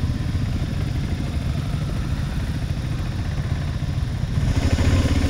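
Motorcycle engine running at low revs with a steady, even firing pulse, getting louder about four and a half seconds in.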